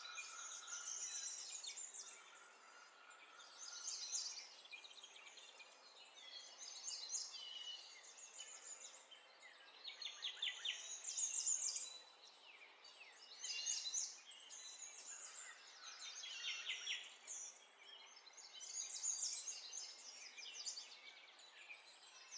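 Small birds chirping and trilling in repeated bursts of quick high notes every second or two, with a short held whistle note near the start.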